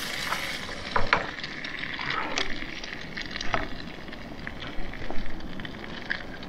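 Beaten eggs sizzling steadily in a small skillet on a camp stove, with a few short scrapes and taps of a wooden spoon stirring them against the pan.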